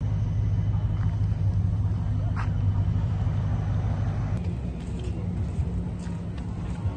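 Car traffic on the road, a steady low engine rumble. A little over four seconds in it drops to a quieter outdoor background with scattered light clicks.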